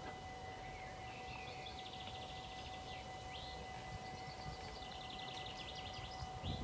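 Level crossing warning bell ringing as one steady high tone, with a songbird singing two rapid trills over low wind rumble.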